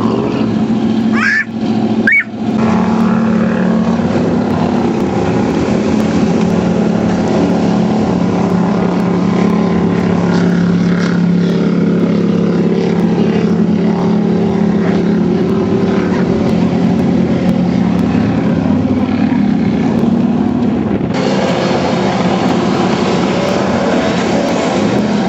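Jet boat engine running hard at speed, a loud steady drone with the hiss of the jet and spray, dipping out briefly twice near the start.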